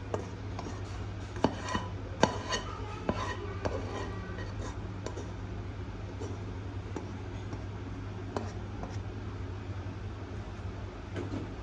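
Kitchen utensils clinking against dishes and a pot: a run of sharp, ringing clinks in the first few seconds, then a few scattered ones, over a steady low hum.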